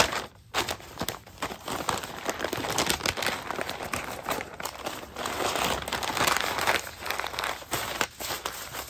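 Pink butcher paper crinkling and rustling as it is folded by hand around a smoked roast, in irregular handfuls of crackles.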